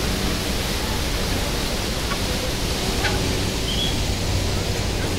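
Steady, loud rushing noise with no pitch to it, with one faint short high chirp about three and a half seconds in.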